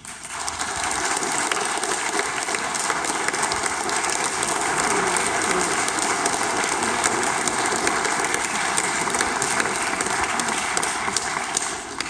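Audience applause that starts suddenly, builds within about a second and holds steady, tailing off near the end.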